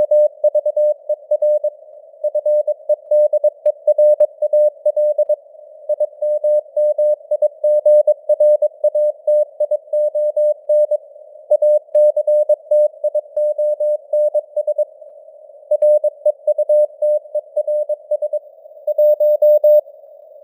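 Morse code (CW) at 22 words per minute: a single mid-pitched tone keyed on and off in quick dots and dashes, with short gaps between words. It sits over a band of hiss that simulates radio noise.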